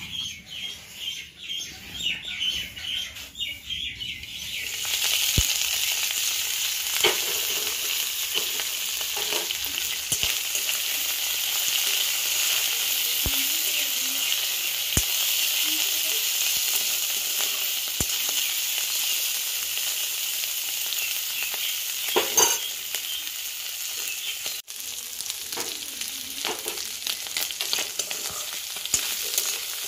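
Small fish and shrimp frying in oil in a wok, stirred with a spatula. A steady loud sizzle starts suddenly about five seconds in, with occasional scraping and clicking strokes from the stirring.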